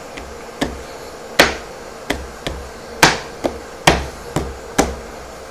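Sharp knocks, about nine at uneven spacing with three louder ones, as a tight-fitting CNC-cut MDF joint piece is tapped down into its mating part.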